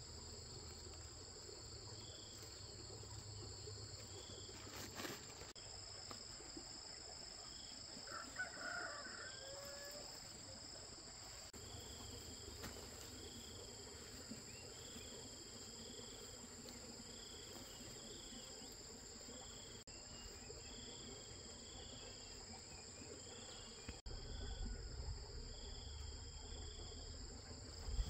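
Insects trilling in a steady, faint high chorus. A short chicken call comes about a third of the way in. From the middle on, a second call pulses about every second and a half.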